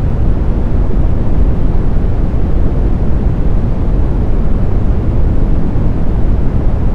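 Generated brown noise: a steady, deep hiss, heaviest in the low end and thinning toward the top, with no tones or rhythm.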